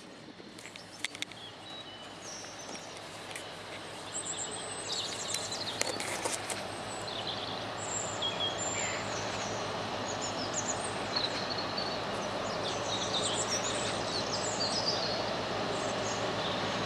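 Small birds chirping and singing over the steadily rising rumble of an approaching freight locomotive and train. A few sharp clicks sound about a second in.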